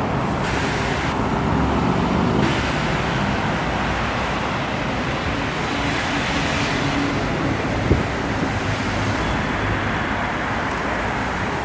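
Steady road traffic noise from cars driving through a sunken road underpass, with one brief tap about eight seconds in.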